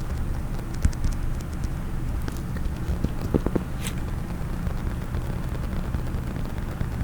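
Fingers tapping and scratching rapidly on a case, a dense run of small taps and crackles with a few sharper clicks about a second in and around the middle.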